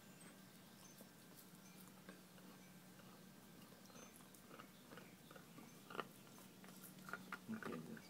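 A pet chewing on a bone: faint scattered crunches and clicks that come thicker near the end.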